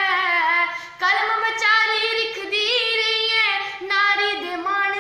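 A woman's solo voice singing a Dogri song, drawing out long held and sliding notes, with a short break about a second in.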